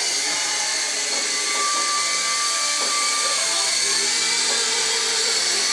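SYMA S032 small electric radio-controlled helicopter whining steadily as its motors spin the rotors in flight, with a brief extra high tone in the middle.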